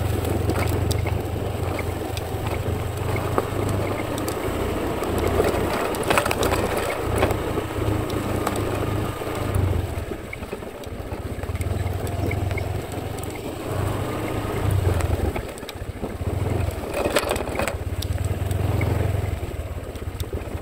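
Scooter engine running at low speed over a rough dirt track, easing off twice, about halfway through and again about three-quarters through, then picking up again. Tyres crunch over dry leaf litter, with scattered knocks from the bumpy ride.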